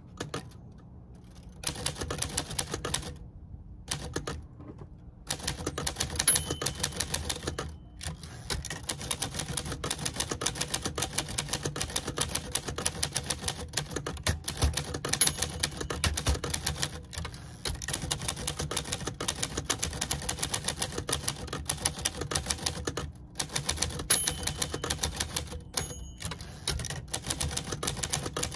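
Manual portable typewriter being typed on: quick, steady key strikes that begin about a second and a half in and run on with a few short pauses.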